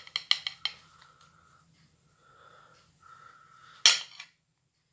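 Tableware being handled: a few quick clinks in the first second, faint movement, then a single louder knock near the end.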